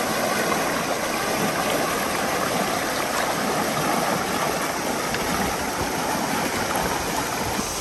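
Shallow river rapids rushing and splashing over rocks close by: a steady rush of water.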